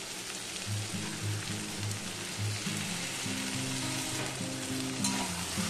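Snake gourd strips sizzling in hot mustard oil in a stainless steel kadai as poppy seed and green chilli paste is added. Background music of low held notes plays throughout.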